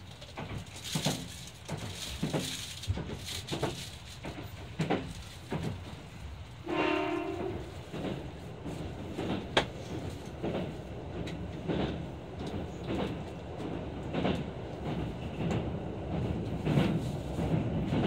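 Cabin sound of a Kintetsu limited express train running at speed: a steady low rumble with repeated clicks of the wheels over rail joints. A train horn sounds once, for about a second, about seven seconds in.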